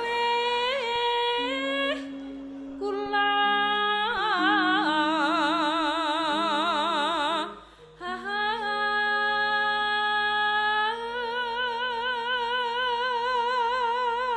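A sinden, a female Javanese vocalist, singing through a microphone in long held notes with wide vibrato, with a brief break between phrases about halfway through. Steady low sustained tones sound beneath the voice.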